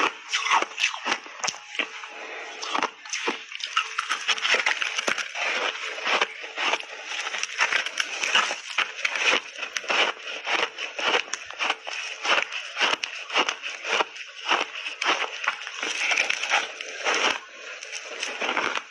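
Close-miked chewing of refrozen ice chunks coated in matcha and milk powder: a dense, irregular run of sharp crunches and cracks as the ice breaks between the teeth.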